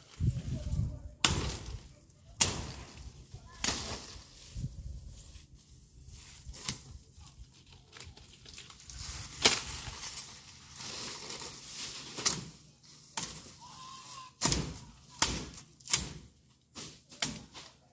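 Machete chopping at palm fronds and branches: a string of sharp, irregular chops every second or two, with leaves rustling between them.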